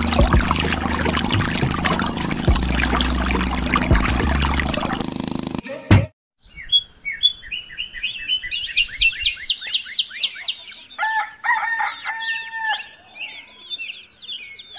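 Water pouring and splashing from a miniature toy hand pump into a muddy puddle, over a steady low hum. After a sudden break and a thump, small birds chirp rapidly and chickens call a few times, loudest about eleven to thirteen seconds in.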